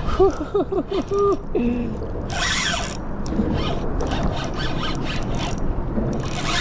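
Fishing reel drag clicking and squealing in a quick run of short pulses as a hooked fish, a big black drum, pulls line off the reel, followed by hissing stretches over steady wind rumble.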